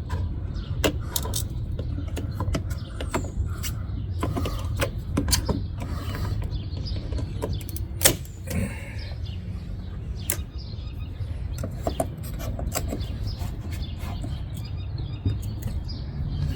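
Metal putty knife scraping and prying at the adhesive around a car's quarter window glass, making irregular sharp clicks and scrapes over a steady low rumble. A bird chirps briefly about three seconds in.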